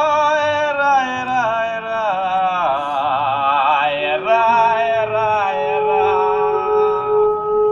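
Music led by a wordless, chant-like singing voice that slides between long held notes, wavering strongly about three seconds in. About four seconds in, a steady drone tone enters under it and holds.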